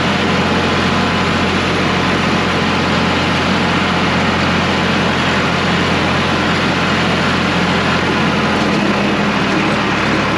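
Vehicle engine running steadily while under way, under a constant wash of road and wind noise. A low drone holds steady and shifts slightly in pitch near the end.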